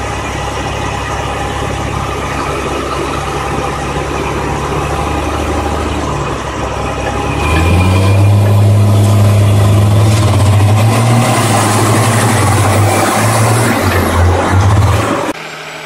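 Heavy diesel engine running steadily, then revving up about halfway through and holding a louder, rougher, pulsing note under load as it works the mud-bound dump truck; it cuts off abruptly shortly before the end.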